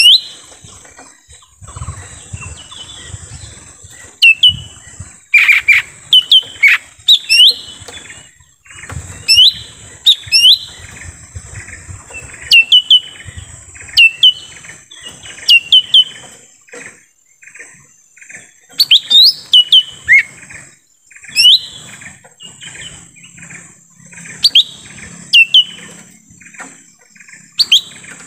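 Lesser green leafbird (cucak ijo mini) calling: loud, sharp chirps, each sweeping steeply down in pitch, given in quick clusters of two to four, over and over.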